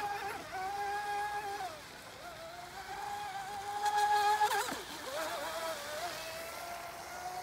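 Brushless electric motor (Boat Rocket 3660, 2600kv) of an RC speedboat running at speed, a high steady whine. It sags about two seconds in as the throttle comes off, then comes back and is loudest with a rush of spray about four seconds in, its pitch gliding down as the boat passes close.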